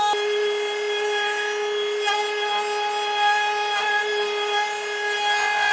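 Metabo HPT compact router running at full speed with a steady high whine, the bit cutting a shallow recess into the cabinet's top edge so a sink flange can sit flush; the pitch dips briefly as the bit bites in, about a second in and again twice later.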